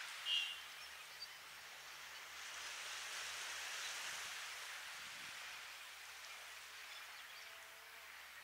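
Gentle ocean waves lapping on a sandy beach, a soft hiss that swells and ebbs. A brief high chirp comes just after the start.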